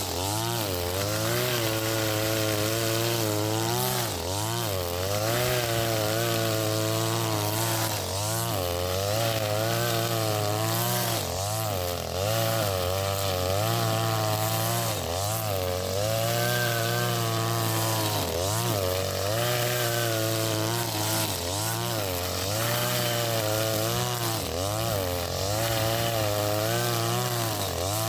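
Husqvarna 542RBS 42cc two-stroke brush cutter running hard with 2.4 mm square nylon line, its engine pitch sagging and recovering every second or two as the line bites into the grass.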